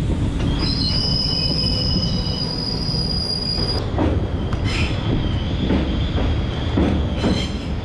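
Boat Mail Express passenger coach running on the rails, heard from inside the coach: a steady rumble of wheels on track, a high thin wheel squeal from about half a second in that cuts off near four seconds, then a few knocks over the rail joints.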